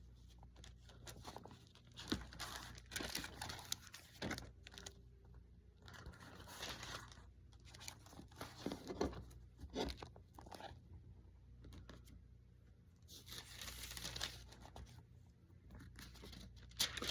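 Pages of a book, most likely a Bible, rustling and being flipped in irregular bursts, with small clicks and handling noises, as a passage is looked up.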